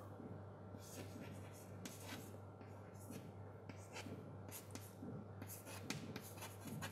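Chalk writing on a chalkboard: faint, short scratching strokes a second or so apart, coming more quickly toward the end.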